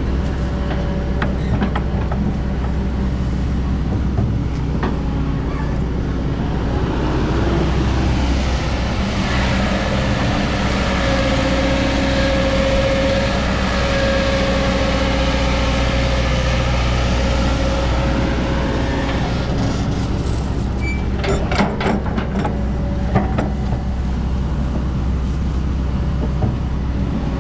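Excavator's diesel engine running steadily under working load. A high, steady whine swells through the middle, and a cluster of sharp knocks and clanks comes about three-quarters of the way through.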